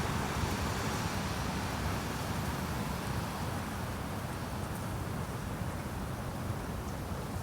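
Strong wind blowing across the microphone, a steady rushing noise with a low rumble, easing slightly over the seconds.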